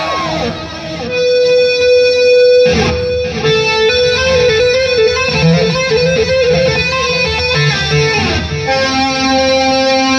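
Electric guitar solo played live: a held note, a quick dive in pitch about three seconds in, then a run of fast alternating notes around the same pitch, sliding down to a lower held note near the end.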